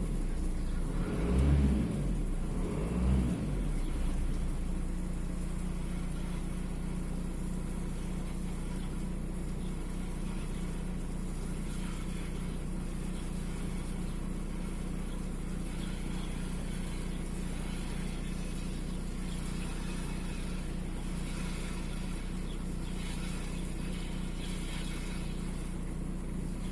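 Volkswagen Golf 4's 1.9 TDI (AXR) four-cylinder diesel revved briefly twice, then settling to a steady idle. The idle has a slight shake that the owner puts down to an intermittent misfire on cylinder 4.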